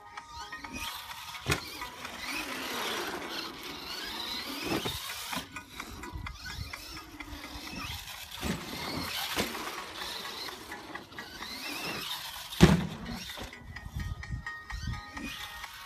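Traxxas Stampede 4x4 VXL radio-controlled truck's brushless electric motor whining, rising and falling in pitch as it speeds up and slows down around the track. A few sharp knocks from the truck hitting the ground come in between, the loudest near the end.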